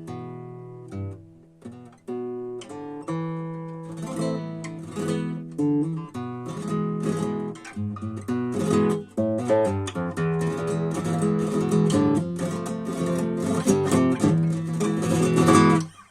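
Valencia CG30 R+ nylon-string classical guitar being played solo. A chord rings out and fades, then single plucked notes build into a fast, busy passage that stops abruptly near the end.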